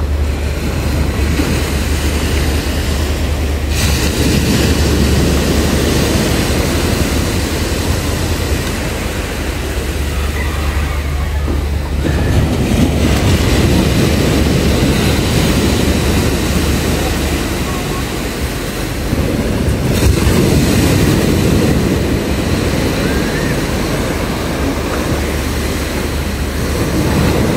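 Loud, steady seashore noise: wind rumbling on the microphone, with surf washing in and swelling in surges about every eight seconds.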